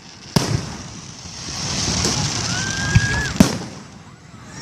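Fireworks going off: a sharp bang early, a crackling hiss building through the middle, a whistling tone that rises and holds, then two more sharp bangs close together about three seconds in.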